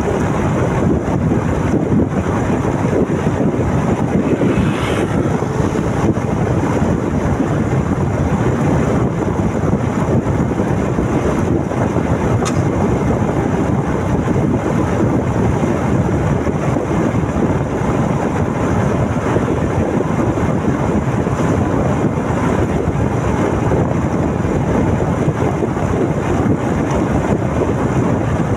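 Steady wind rushing over the microphone of a moving motorcycle, with the bike's engine and road noise underneath.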